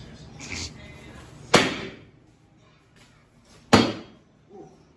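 Two heavy hammer blows on a seized small-block Chevy 350 engine, about two seconds apart, each a sharp metallic bang with a short ring, struck to break the seized engine free and turn it over.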